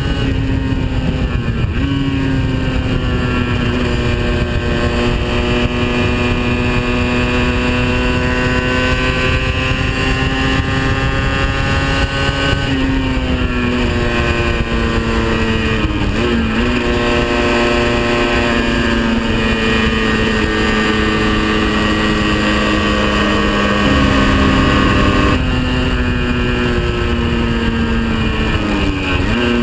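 Aprilia RS 50's 50 cc two-stroke single running at steady high revs on the road, over a constant wind rush. Its pitch sags slowly and jumps or dips briefly a few times as the throttle and gears change.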